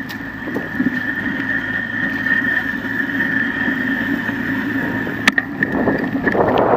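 Bicycle rolling over pavement: steady tyre and ride noise with a constant high whine. A sharp click comes about five seconds in, and near the end the noise turns louder and rougher as the wheels run onto cracked concrete slabs.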